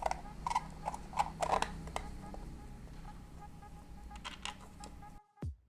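Light clicks and knocks of plastic parts being handled as a 3D-printed enclosure is assembled, over a steady low hum. About five seconds in, the background noise cuts out and electronic music with a beat starts.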